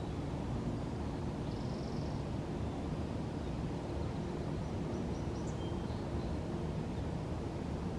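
Steady low outdoor rumble with a few faint, short high chirps and a brief trill above it.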